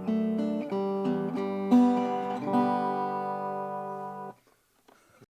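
Acoustic guitar playing a slow fingerpicked phrase, single plucked notes about every half second, ending on a chord that rings and fades before cutting off suddenly about four seconds in.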